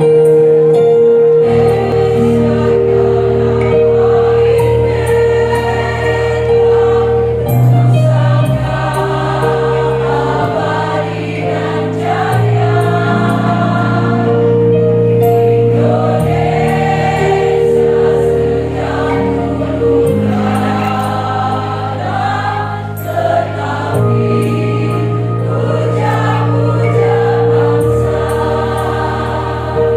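Women's choir singing in parts over sustained low accompaniment chords that change every few seconds.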